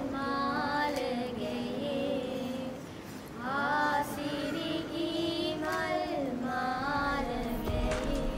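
Two young girls singing a melody together, holding and bending long notes, with a short breath pause about three seconds in.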